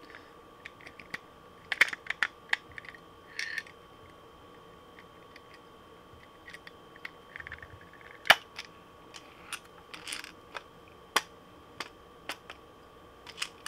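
Hard plastic clicks and taps, with a few short rustles, as the two halves of a 3D-printed lure body are handled and fitted together. The clicks are irregular, the sharpest about two seconds in, near the middle and about eleven seconds in, over a faint steady high whine.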